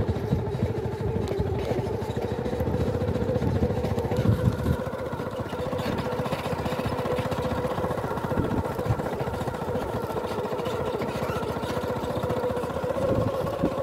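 A motor vehicle's engine running steadily on the move: a steady hum over a low rumble.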